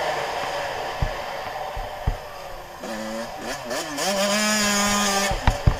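Suzuki RM85 single-cylinder two-stroke motocross engine being ridden hard: the revs fall away, blip up and down, then hold steady at a high pitch. A couple of sharp knocks come near the end.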